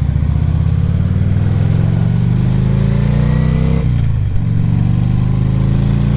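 Harley-Davidson V-twin engine pulling as the motorcycle accelerates; its pitch rises, dips at a gear change about four seconds in, then climbs again.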